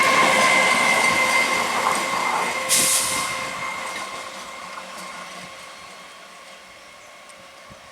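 A train running past and fading away, its wheel noise and a steady high whine dying down over about five seconds. A short burst of hiss about three seconds in.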